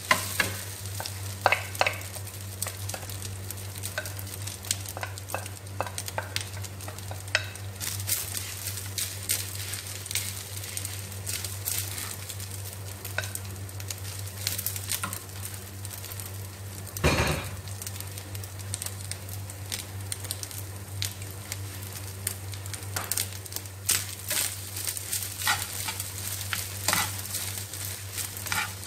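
Cooked rice coated in egg yolk being stir-fried in a pan, with a faint sizzle under the scrape and tap of a wooden spatula turning it. A steady low hum runs underneath, and there is one louder knock about 17 seconds in.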